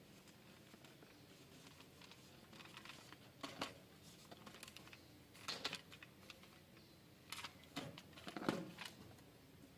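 Handling and wiping the plastic parts of a cordless dry vacuum cleaner: short scattered rustles, scrapes and light plastic clicks, with the loudest near the end.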